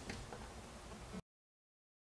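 Faint room tone with a soft click just after the start; the sound cuts off to dead silence a little over a second in, as the recording ends.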